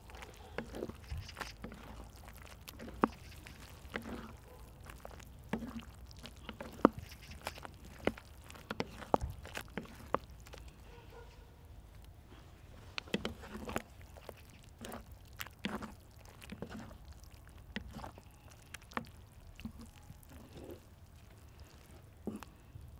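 Wooden spatulas stirring thick jjajang tteokbokki on a cast-iron cauldron-lid griddle, with irregular sharp knocks and scrapes of wood on iron over the sauce simmering.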